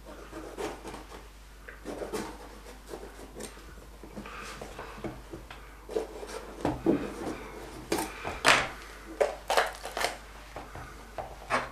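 Kitchen knife cutting a red bell pepper on a cutting board: irregular cuts and knocks of the blade against the board and the pepper being handled, coming thicker and louder in the second half.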